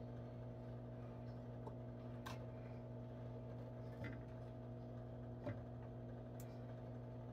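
Steady low hum with a few light clicks and knocks of kitchen items being handled on the counter, the sharpest about five and a half seconds in.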